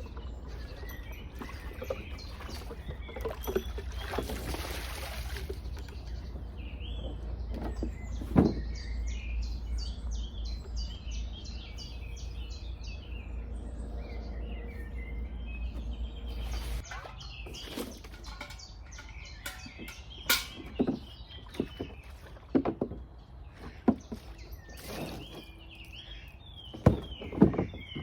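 Small birds chirping over a steady low rumble that fades out a little past halfway, with scattered sharp knocks and clicks, several close together near the end.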